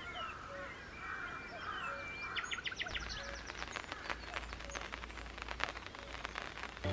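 Birds chirping and calling in the woods. About two and a half seconds in comes a quick run of sharp clicks, followed by scattered ticks.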